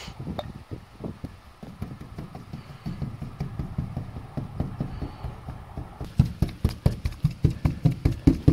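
Paintbrush dabbing resin into fibreglass matting over a van's metal roof panels: a run of short taps, irregular at first, then steady at about four or five a second and louder from about six seconds in.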